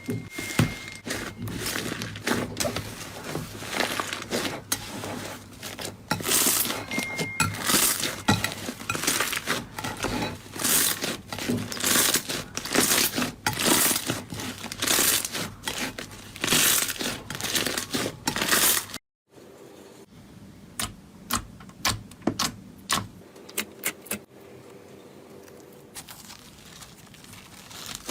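Slime being squeezed and pressed by hand, with rapid crackling and popping. About two-thirds of the way through the sound cuts off and gives way to a quieter stretch with sparser pops.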